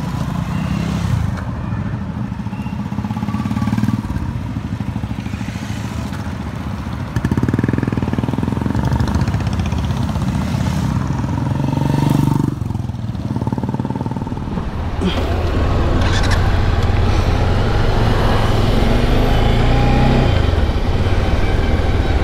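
A column of touring motorcycles rides past one after another at low speed, engines running, with one louder close pass about a third of the way in. Later the recording motorcycle gets under way and runs steadily at road speed, with wind noise over its engine.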